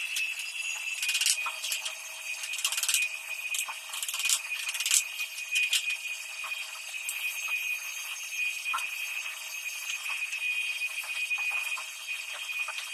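Wooden planks knocking and clattering irregularly as they are laid and shifted on a wooden pallet, over a steady high-pitched tone.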